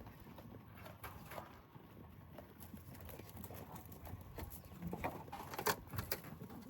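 Goats feeding and moving about: scattered light clicks and knocks, with a few sharper knocks about five to six seconds in.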